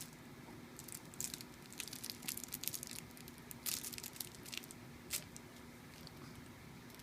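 Rustling and crinkling in a run of short, crisp bursts that stop about five seconds in, as from a baby moving on a crinkly fabric play mat.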